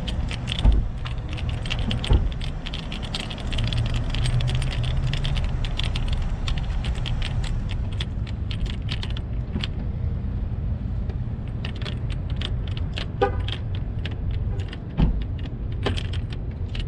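Hand screwdriver driving a screw into the plastic dash panel of an old Yamaha motorcycle: runs of small rapid clicks with a few louder knocks, over a steady low rumble.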